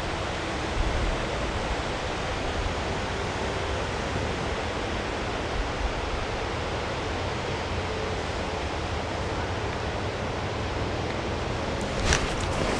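Steady background hiss. Near the end come a few sharp splashy hits as a bass strikes a topwater frog lure and the rod is swept back to set the hook.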